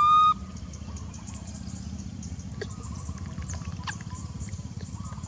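A baby macaque gives one short, high, steady-pitched coo call right at the start. The call runs over a steady low rumble, with faint bird chirps in the background.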